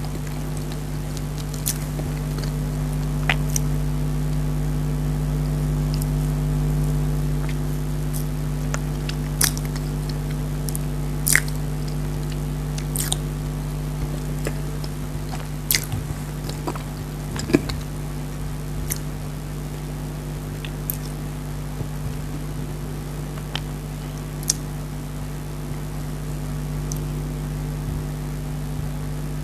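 Close-up mouth sounds of chewing chocolate dry fruit cake, with scattered sharp clicks and crunches at irregular intervals. A steady low hum runs underneath.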